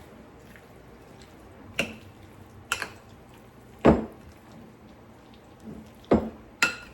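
A utensil knocking against a bowl while a wet chicken filling is mixed: about five separate knocks at irregular intervals, the loudest near the middle, with soft wet mixing sounds between them.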